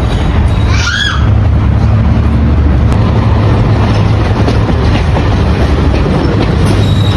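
Railway locomotive and train running close by: a loud, steady low rumble with wheel noise on the track, and a brief squeal that rises and falls about a second in.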